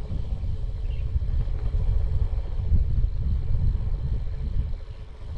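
Low, uneven rumbling noise of wind buffeting the microphone outdoors, with nothing else standing out above it.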